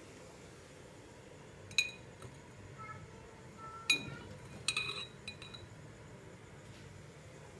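Metal spoon clinking against glass seasoning jars while seasoning is scooped out. There is one sharp clink just under two seconds in, another about four seconds in, then a quick run of clinks right after.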